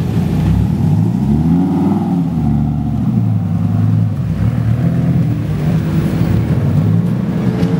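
Devon GTX's V10 engine and exhaust running at low revs as the car pulls away slowly, with one rise and fall in revs about one to two seconds in.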